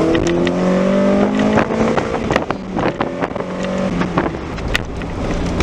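BMW E30 M3's four-cylinder engine accelerating with a rasp: its note rises, drops about one and a half seconds in as it changes gear, then pulls on more steadily. A few sharp clicks sound over it.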